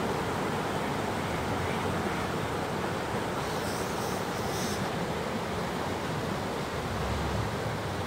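Steady rushing of a shallow, rocky mountain stream as a Toyota Land Cruiser Prado wades slowly through the water. A low rumble swells briefly near the end.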